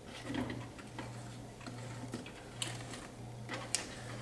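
Wooden spoon stirring a thick peanut butter candy mixture in a stainless steel saucepan: irregular soft clicks and scrapes of the spoon against the pot, with two sharper knocks in the second half.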